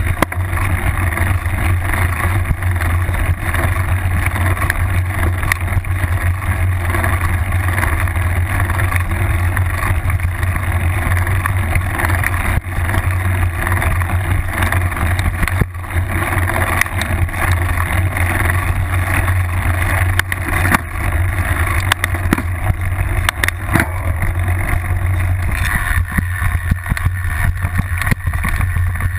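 Mountain bike riding a bumpy dirt trail, heard through a camera clamped to the seatpost: a steady loud rumble with frequent knocks and rattles.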